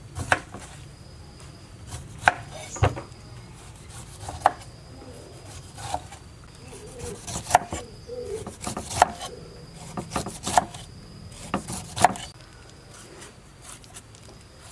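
A cleaver slicing the skin off a pineapple and knocking down onto a wooden cutting board: about a dozen sharp, irregular chops, with a faint high insect drone behind them.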